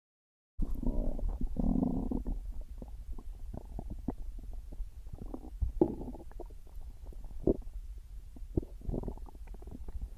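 Stomach growling: gurgling rumbles that start suddenly about half a second in and are loudest about one to two seconds in. A scattered string of short gurgles and pops follows.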